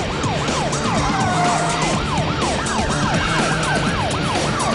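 Police car siren in fast yelp mode, its pitch sweeping up and down about three times a second, with background music underneath.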